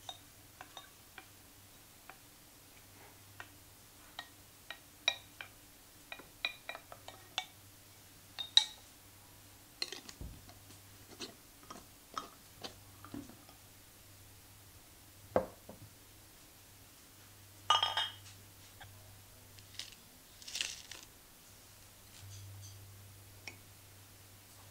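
Scattered light clinks and taps of glass: a wooden spoon scraping and knocking against a glass bowl as crushed strawberries are spooned into a glass jar, then the lid being put on the jar, with a few louder clatters along the way.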